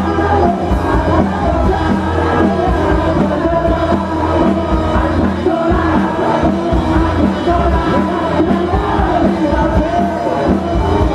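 Live band playing loud rock, with a voice singing over the band and crowd noise mixed in.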